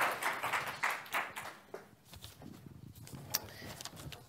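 Audience applause dying away over the first second and a half, then a quieter room with a few footsteps and one sharp click a little after three seconds in.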